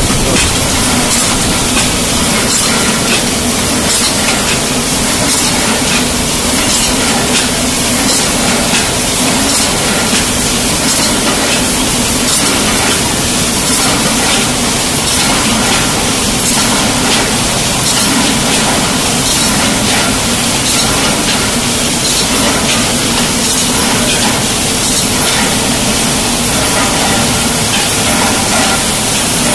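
Automatic tinplate paint can body production line running: a loud, steady din of machine hiss and hum, with faint repeated clicks from the can-handling turrets and conveyors.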